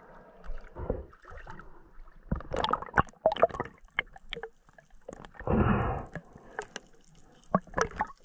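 Water sloshing and gurgling around a diver's action camera at the sea surface and underwater, with scattered clicks and splashes and a louder gurgling burst about halfway through.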